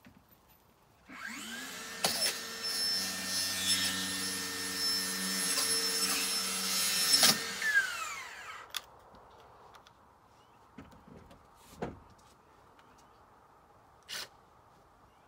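Electric power-tool motor spinning up, running steadily for about six seconds, then switched off and coasting down over a second or so. A few light knocks follow.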